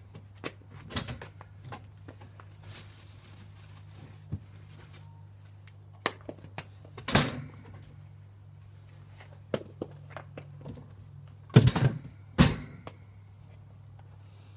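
Several sharp thuds and knocks at irregular intervals, the loudest two close together near the end, over a low steady hum.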